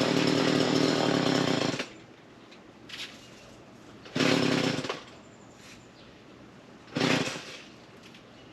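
Small chainsaw run in three throttle bursts while cutting up a fallen tree: a long burst of under two seconds at the start, a shorter one about four seconds in, and a brief blip about seven seconds in. The saw is quiet between the bursts.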